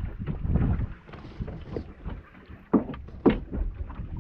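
Wind buffeting the microphone on a small fishing boat at sea, with two sharp knocks a little over half a second apart about three seconds in.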